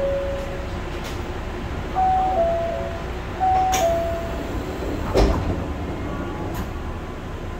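Osaka Monorail car's door-closing signal: a short beep, then a falling two-note chime sounding twice, over the car's steady low hum. The sliding doors then shut with a thump about five seconds in.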